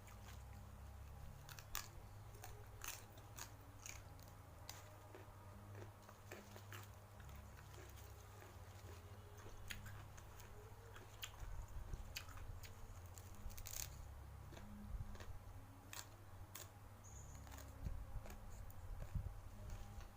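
Close-miked chewing of a meal of fried mujair (tilapia) and raw papaya leaves, with scattered small crunches and mouth clicks over a low steady hum.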